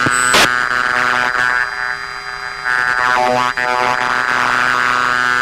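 Steady electronic buzz with a stack of even tones over a fighter jet's cockpit intercom, with a sharp click just under half a second in. It dips in level and wavers briefly around the middle.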